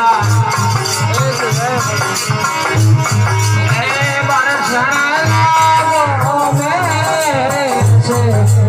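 Devotional bhajan music with no words sung: a gliding melody over a steady low beat and fast percussion ticks.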